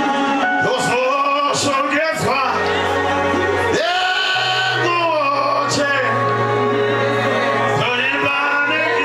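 Shona gospel hymn sung by church voices, a man's voice prominent, over long held low bass notes that shift pitch a few times.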